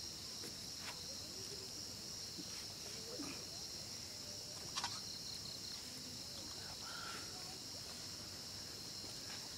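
Steady high-pitched chorus of night insects, crickets or the like, with a couple of faint clicks, the sharpest about halfway through.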